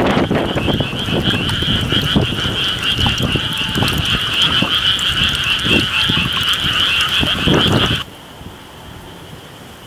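Japanese tree frogs calling in a dense chorus, a rapid run of calls pitched high and steady. About eight seconds in the loud chorus drops suddenly to a fainter one, with wind rumbling on the microphone under the loud part.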